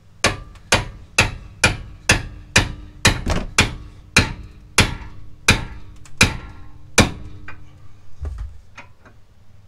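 Sledgehammer hammering a pickle fork into a lower ball joint: about fourteen hard metal-on-metal blows, roughly two a second, each ringing briefly, then a few lighter knocks. The blows finally pop the ball joint loose.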